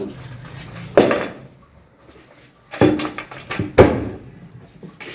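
Sharp knocks and clinks of hard objects being struck or moved: one about a second in, a quick cluster near three seconds, and another just before four seconds.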